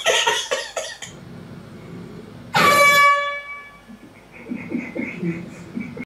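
An air horn blasts once, loud, for about half a second, starting suddenly about two and a half seconds in and ringing briefly after. A short burst of loud noise comes before it in the first second, and a voice follows near the end.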